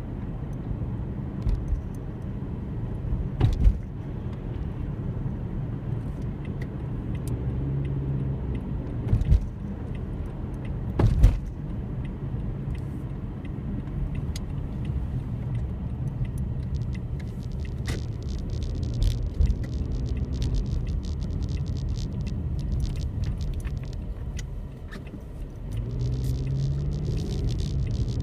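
A steady low rumble like a car in motion, with a few sharp knocks in the first half and faint crackling later on.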